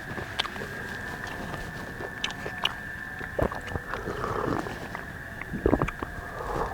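A person biting and chewing food close to the microphone, with scattered clicks and short handling noises. A steady high-pitched tone runs underneath.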